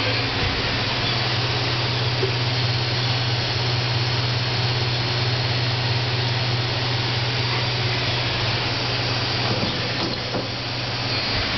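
Daewoo Lynx 200B CNC turning center running a program, its spindle spinning the chucked workpiece: a low steady hum under a loud, even hiss, dipping briefly near the end.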